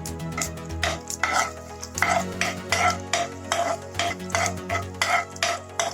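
Spoon scraping and stirring around a pan of hot oil, about three strokes a second, with mustard seeds, cumin and dried red chilies frying in it: the tempering of spices for a vada pav potato masala.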